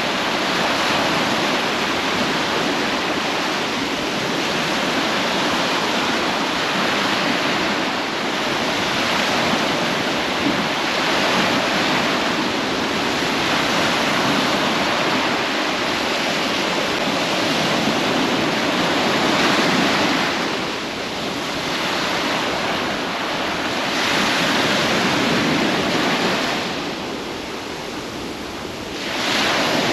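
Ocean surf washing onto a beach: a steady rush of breaking waves that swells and eases, dipping briefly about two-thirds of the way through and again near the end.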